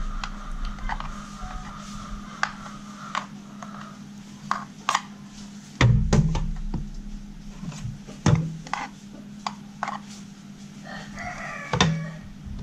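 Scattered knocks and clicks of a spoon against a metal steamer pot and a plastic mould while sticky rice is scooped and packed. A rooster crows once near the end.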